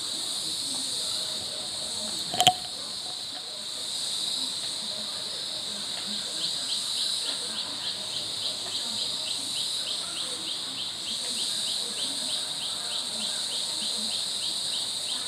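Forest insect chorus: a steady high-pitched buzz, with a sharp click about two and a half seconds in. From about six seconds in, a rapid run of short falling chirps joins it, about three a second.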